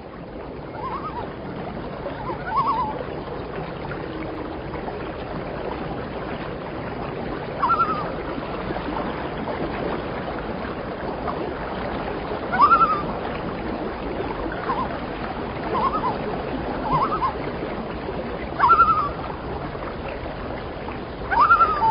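Common loons giving short rising calls, about nine in all and a few seconds apart, over steady water lapping and splashing.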